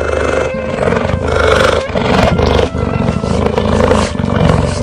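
Big cat growling: a loud, rough, pulsing growl with a deep rumble, going on without a break.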